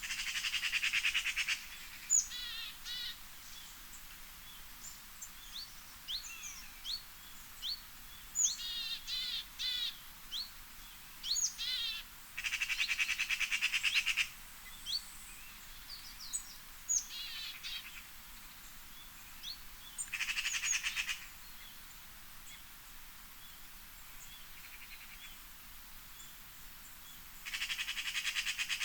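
Several songbirds chirping and singing: short, sharp downward-sweeping whistles and quick trills. A buzzy rasping call, about a second and a half long, comes in four times.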